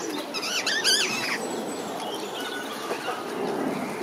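Rose-ringed parakeet giving one harsh, wavering screech about a second long near the start, followed by softer chirps.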